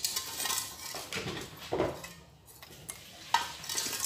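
Aluminium cooking pot knocking and scraping in a few light, irregular clanks as it is shifted into place on a clay charcoal stove.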